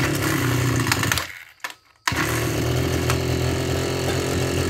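Maruyama MB3030 backpack brush cutter's 30cc two-stroke engine starting on the pull rope and running. It cuts out briefly near two seconds in, then fires again and settles into a steady idle.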